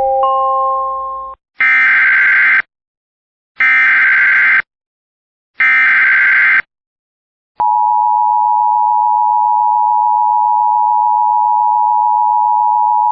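Emergency Alert System broadcast opening: a few held electronic tones end, then three one-second bursts of SAME digital header data a second apart, then the steady EAS attention tone starts about halfway through and holds.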